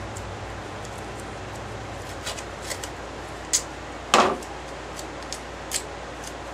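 Masking tape being handled and pressed onto a metal vise: scattered small clicks and crackles, with one louder ripping sound about four seconds in, over a steady background hiss.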